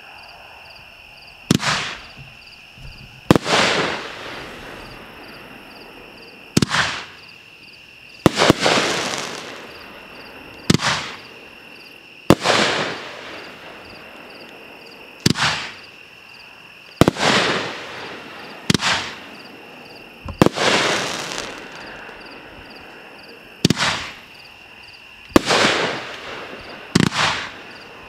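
Aerial fireworks going off in a steady string, about a dozen sharp bangs one to three seconds apart. Each bang is followed by a hissing tail that fades over about a second.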